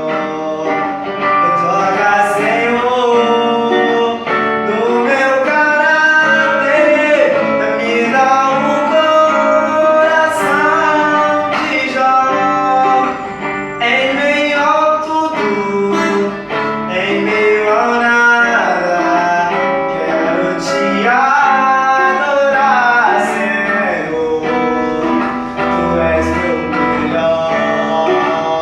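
Male voice singing a Portuguese-language gospel song over acoustic guitar accompaniment.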